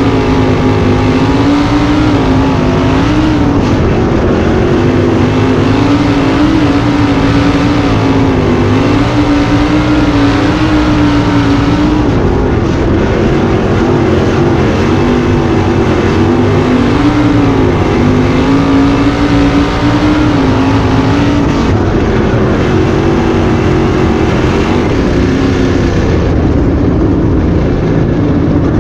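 Wingless 410 sprint car's methanol-burning 410 cubic-inch V8 running hard at racing speed on a dirt oval, heard from the cockpit. Its pitch rises and dips every few seconds as the driver gets on and off the throttle through the corners.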